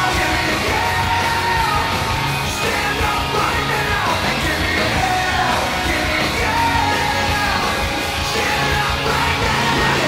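Rock song with yelled, shouted singing over a steady beat, playing as an ice hockey team's goal celebration song.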